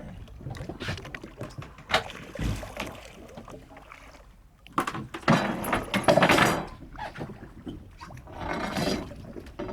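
Irregular knocks and bursts of rushing, splashing noise aboard a fishing boat at sea, loudest about halfway through.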